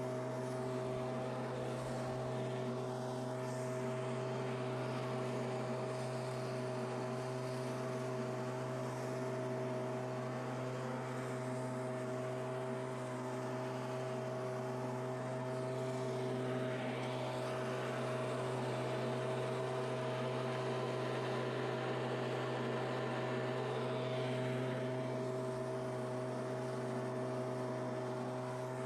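Stihl two-stroke leaf blower running at a steady speed, blowing dry leaves.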